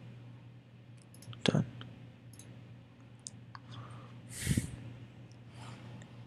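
A few sharp, short computer mouse clicks as web-page buttons are clicked, with a short breath-like hiss about four and a half seconds in, over a low steady hum.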